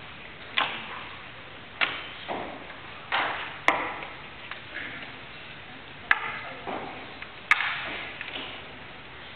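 Chess pieces being put down on a roll-up board on a table, together with presses of a chess clock, making about five sharp clicks with softer knocks between them.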